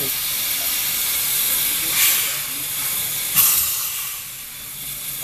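Narrow-gauge steam locomotive hissing steadily as it moves slowly with its cylinder drain cocks open, steam blowing out at the front. Two louder bursts of steam come about two and three and a half seconds in.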